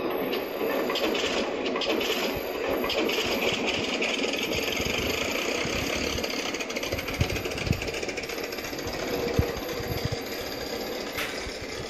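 Plane-engine sound effect from the cake's small built-in speaker: a steady running engine noise with a rattle and occasional low knocks.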